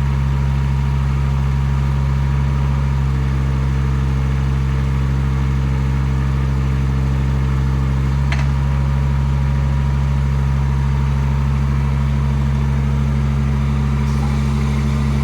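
Chinese mini excavator's engine running steadily while the hydraulics move the boom and arm. A higher hum joins for a few seconds in the middle and stops with a sharp click about eight seconds in.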